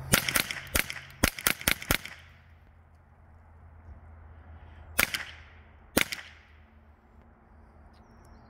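Rifle shots: a quick string of about eight shots in the first two seconds, then two single shots about a second apart near the middle. Each shot has a short echoing tail.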